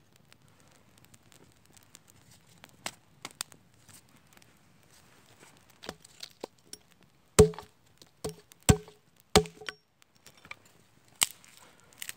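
An axe chopping wood, splitting kindling: a run of about ten sharp knocks, some with a short woody ring, the loudest about halfway through.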